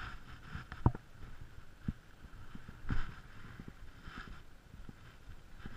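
Several scattered knocks and thumps on a fishing boat, the loudest about a second in, over a faint low background.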